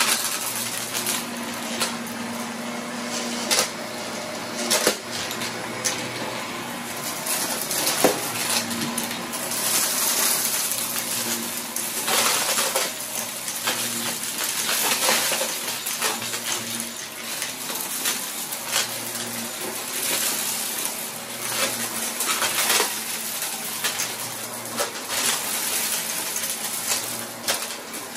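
Vacuum cleaner running on carpet, its motor humming steadily, as it sucks up scattered small hard debris. The bits click, crackle and rattle up through the nozzle and tube in a constant stream of sharp little impacts.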